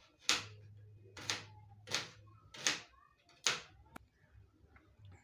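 Knife cutting through tomato against a plate in five quick strokes, about two-thirds of a second apart, then one sharp click a little later.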